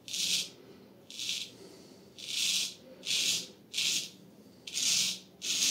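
Full-hollow-ground straight razor cutting through lathered stubble: short crackling scrapes, seven strokes about a second apart, each under half a second.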